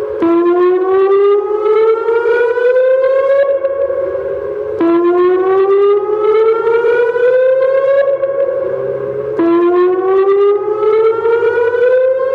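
Dam warning siren sounding during a routine test. It gives a loud, repeating wail that rises slowly in pitch for about four seconds, drops suddenly and climbs again, three times over.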